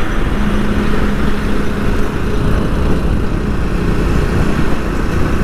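Motorcycle cruising at steady speed: the engine runs evenly under a continuous rush of wind and road noise.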